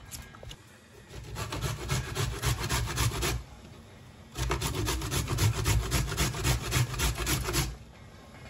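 Carrot being grated on a stainless-steel box grater: quick rasping strokes in two runs, with a short pause before the second run about four and a half seconds in.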